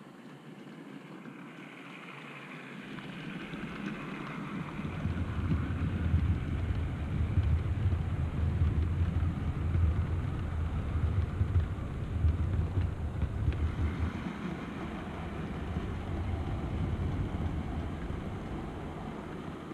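OO gauge model train, a locomotive with a rake of coaches, running past on the track: a low rumble and clatter of wheels on the rails that builds over a few seconds, stays loud for about eight seconds and then eases off.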